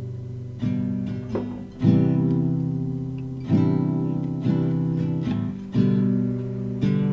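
Acoustic guitar instrumental music: chords struck every one to two seconds, each left to ring and fade.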